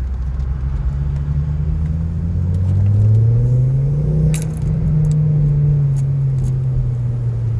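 2011 Volvo C30 T5's turbocharged five-cylinder running through a Simons aftermarket exhaust, pulling in first gear: it rises in pitch for about three seconds, then eases off slowly on the overrun. It is demonstrating a buzzing, rattling drone from the rear muffler box that comes in on deceleration from about 2,500 rpm, which the owner traces to the box itself after a smoke test showed no leaks. A light metallic jingle comes about four seconds in.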